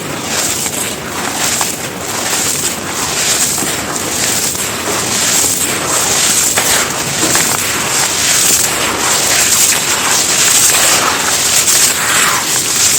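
Dry chunks of cement being crushed and crumbled: a steady, dense gritty crunching made of many small crackles.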